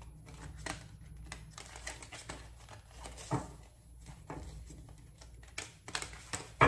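Tarot cards being shuffled and handled by hand: irregular soft clicks and slaps of the cards, several a second at times, with a few sharper taps.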